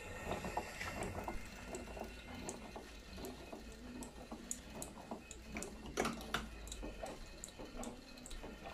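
Driving wheels, rods and valve gear of a 5-inch gauge Bagnall-style live steam locomotive turning on a stand under compressed air: faint, irregular clicking and ticking.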